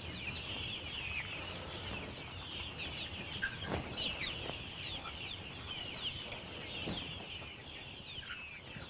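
A flock of Rhode Island Red chickens on pasture calling, a dense chatter of many short, high, overlapping calls, with a few soft knocks.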